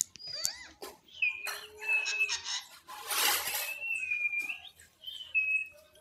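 Rose-ringed parakeet (Indian ringneck) making short whistled calls and chatter, with a brief raspy call about three seconds in and a few sharp clicks.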